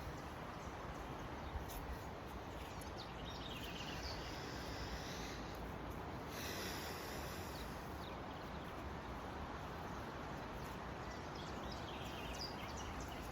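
Faint steady background ambience with a few faint, high chirping calls in the middle.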